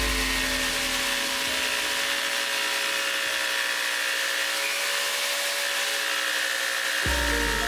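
A table-mounted saw with a thin reciprocating blade, jigsaw or scroll-saw type, running steadily as it cuts through plywood. A deeper rumble comes in abruptly near the end.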